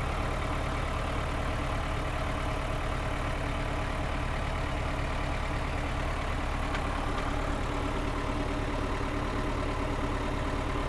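The 1972 Nissan Caravan's 2.2-litre diesel engine idles steadily, heard from inside the cab. It is fully warmed up at normal operating temperature and sounds healthy.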